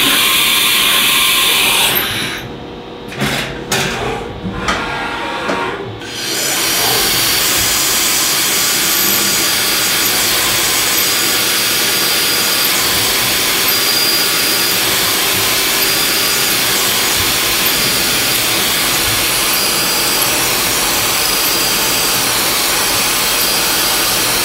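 A 1995 Haas VF-3 CNC vertical mill's end mill cutting a metal block into soft jaws. The noise is loud at first, dips and breaks up from about two to six seconds as the tool moves between cuts, then settles into a steady, even rushing sound for the rest.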